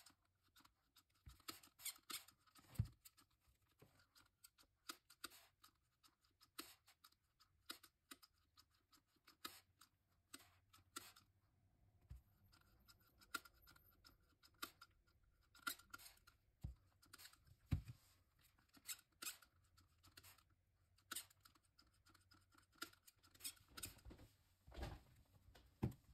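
Small hand-held trigger spray bottle misting an acrylic painting: many short squirts, each a brief hiss, at an irregular pace of about one or two a second, with a few soft knocks in between.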